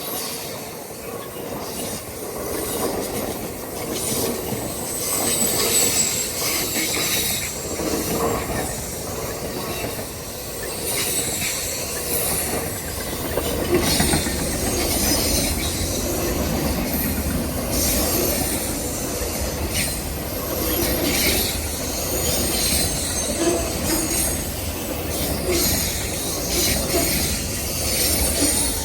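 Amtrak Auto Train cars rolling past at close range: a continuous rumble of wheels on rail, with clacking over the joints and recurring high-pitched wheel squeal.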